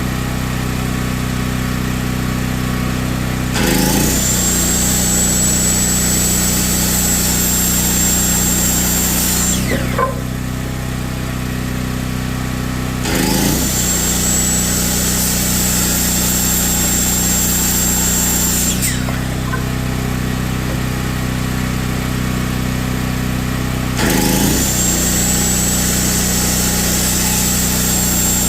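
Hercules 7 1/4-inch corded circular saw spinning up with a rising whine and cutting through wooden boards, three times in a row, each run lasting about six seconds. The first two runs stop quickly, as the electric brake halts the blade. A steady low hum runs underneath throughout.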